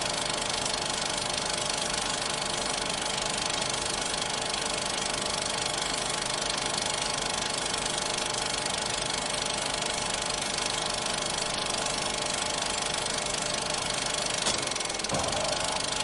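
Vintage film projector running steadily: a continuous mechanical clatter of the film transport over the hum of its motor, with one brief louder click near the end.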